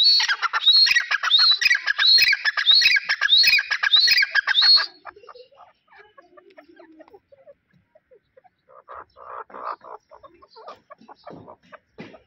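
Grey francolin (teetar) calling: a loud, fast run of harsh repeated notes, about two a second, that stops about five seconds in.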